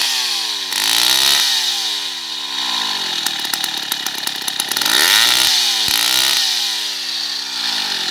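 Stihl 070 chainsaw's 105cc two-stroke engine being revved in blips, each rising and then winding down in pitch. It drops toward a loping idle near the end.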